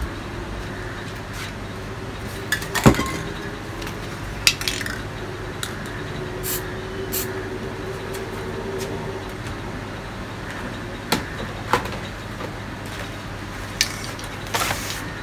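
Scattered sharp clinks and knocks of spray cans and metal lids being handled, about seven in all, over a steady low background hum; a short hiss comes near the end.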